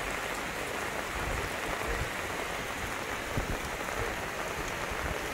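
Heavy monsoon rain falling steadily onto a flooded road, a continuous hiss of rain on standing water and wet tarmac.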